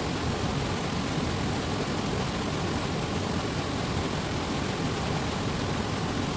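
Fast river water rushing, a steady, even roar.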